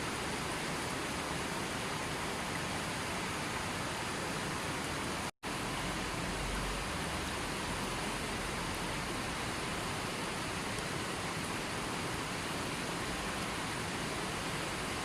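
River water rushing in a steady, even flow, cut by a split-second dropout to silence about five seconds in.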